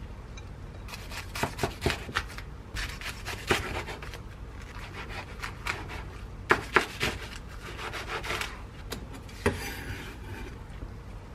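Chef's knife cutting through a kimbap roll and knocking on a wooden cutting board in a run of sharp strokes and scrapes. Near the end the blade scrapes fallen filling across the board.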